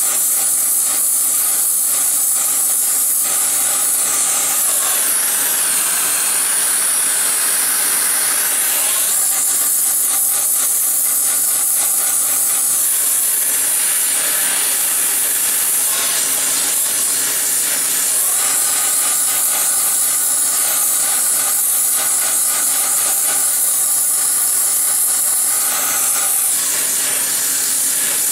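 Oxy-fuel torch flame hissing steadily as it heats the cast-iron manifold around a seized, broken exhaust manifold bolt to free it. The hiss shifts slightly in tone from time to time as the flame moves over the metal.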